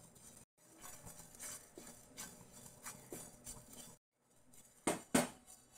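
Silicone spatula stirring cumin and fenugreek seeds dry-roasting in a nonstick pan: soft scraping with light scattered crackles, the sign that the cumin is roasting, and two sharper clicks near the end.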